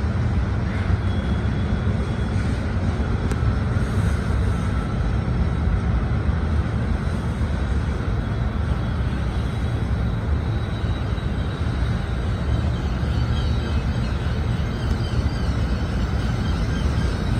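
Freight train of covered hoppers and autorack cars rolling past below, a continuous low rumble.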